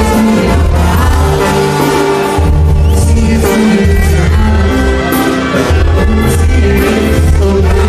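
Live Mexican banda music: sousaphone bass line under a brass section, congas and drums, with a singer.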